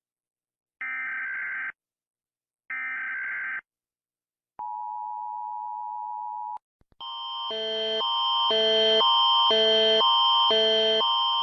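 Emergency Alert System alarm audio: two short buzzing SAME header data bursts about a second long, then the steady two-tone attention signal for about two seconds. About seven seconds in, a loud multi-tone alert pattern starts, switching back and forth about twice a second and swelling in loudness.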